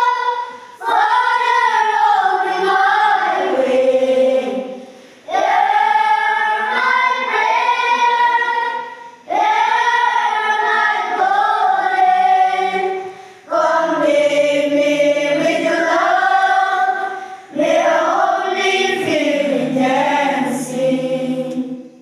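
Choir of children singing together in held phrases of about four seconds each, with a short breath between phrases.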